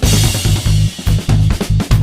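Background music with a heavy, steady drum beat.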